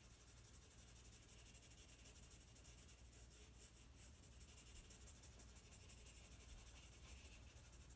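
Faint, soft scratchy rubbing of a paper blending stump on black drawing paper, smoothing white charcoal into a gradual light-to-dark transition.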